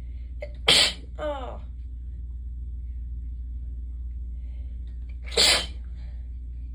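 A person sneezes twice during a sneezing fit, two sharp, sudden sneezes about four and a half seconds apart, with a short voiced "oh" just after the first.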